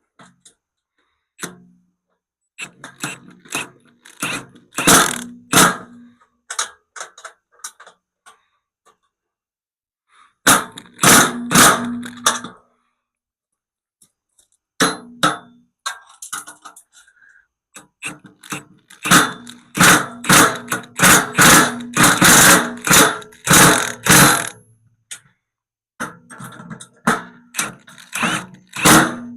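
Socket ratchet wrench clicking in repeated bursts of quick strokes, with pauses between, as bolts are tightened on a steel loader bucket.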